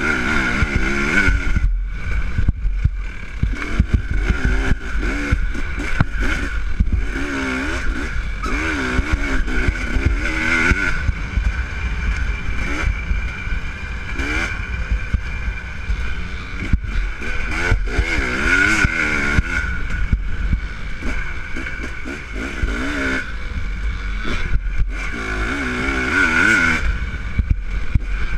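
Dirt bike engine heard close up from a camera on the bike, revving up and falling back again and again as the rider works the throttle up a rough trail, with sharp knocks and rattles from the bike over the bumps.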